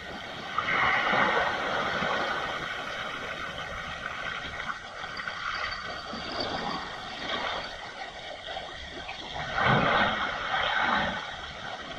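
Sea waves breaking and washing over a rocky shore: a surge of surf about a second in and another near the end, with a steady hiss of moving water between.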